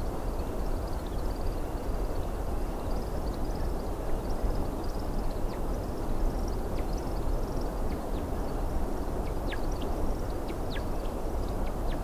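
American woodcock display: high twittering and chirping notes, with a few quick falling notes in the second half, over a steady low noise.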